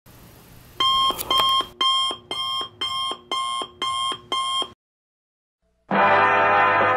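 Electronic alarm beeping, about two short beeps a second, cutting off suddenly after about four seconds. About a second later music starts.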